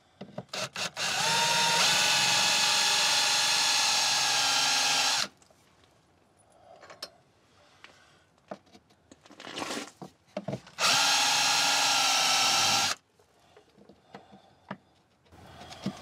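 Ryobi cordless drill boring through painted lap siding, enlarging a pilot hole to half an inch. A few short trigger blips, then a steady run of about four seconds that stops suddenly, and a second, shorter run later on.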